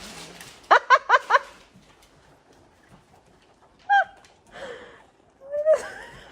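Cat meowing: a quick run of four short calls about a second in, then two single meows later, one falling in pitch and one rising.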